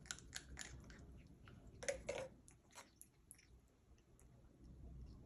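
Pet parrot eating while being hand-fed: quick faint clicks of beak and tongue, with a couple of louder smacking sounds about two seconds in.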